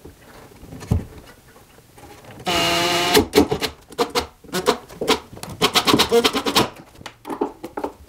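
Makita cordless impact driver driving a small screw into a wooden floor joist. Its motor whines briefly about two and a half seconds in, then its impact mechanism hammers in rapid rattling bursts for about three seconds.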